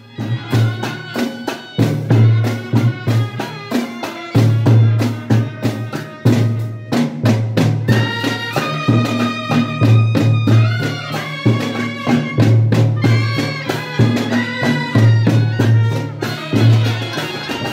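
A brass band playing: a bass drum and snare drums beat a steady rhythm while trumpets play a melody over it, the trumpet notes standing out more from about halfway through.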